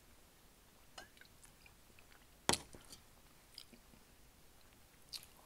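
Quiet close-up eating and drinking mouth sounds after a sip from a drink can: soft chewing with a few short, sharp clicks, the loudest about two and a half seconds in.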